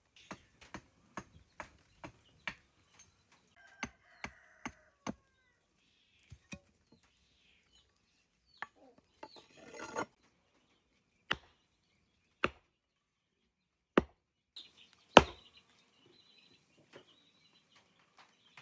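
Irregular chopping strokes: sharp single knocks, quick and close together at first, then sparser, with the loudest stroke near the end. A brief bird call comes through around four seconds in.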